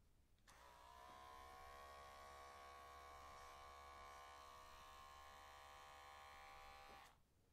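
Electric pet hair clipper switched on. Its motor spins up with a slight rise in pitch, buzzes steadily for about six seconds, then is switched off and stops abruptly.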